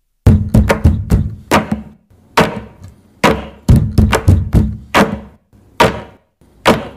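Background music: the percussion intro of a song, drum strikes in an uneven rhythmic pattern, coming in just after a moment of silence.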